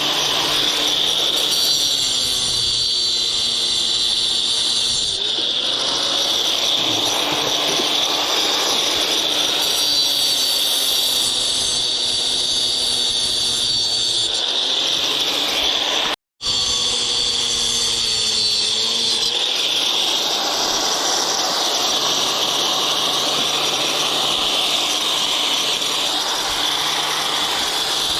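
A power tool's motor running steadily with a loud hiss-like whir; its pitch dips briefly twice, and the sound drops out for an instant just past halfway.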